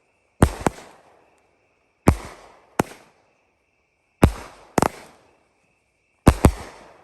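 Consumer fireworks cake firing its shots about every two seconds. Each shot is a launch thump followed a split second later by a second sharp report, four pairs in all. A faint steady high-pitched hum sounds in the gaps between shots.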